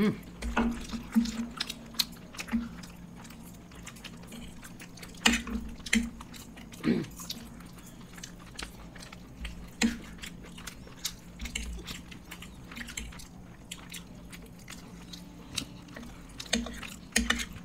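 People chewing and eating chicken Manchurian with hakka noodles close to the microphone: irregular wet mouth clicks and smacks, over a faint steady hum.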